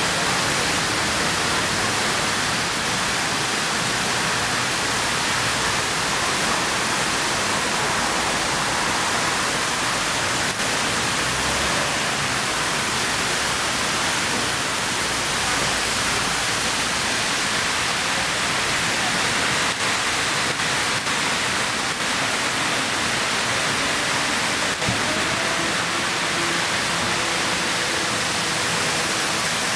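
Steady rush of a large stone fountain, water spilling continuously over its tiered basins.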